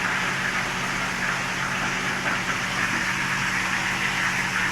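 Fish frying in hot oil: a steady crackling sizzle.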